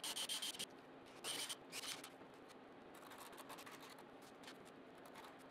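Faint handling noise of a small plastic bag of hardware being worked by hand on a wooden slab: three short crinkling, scraping rustles in the first two seconds, then a few soft light ticks.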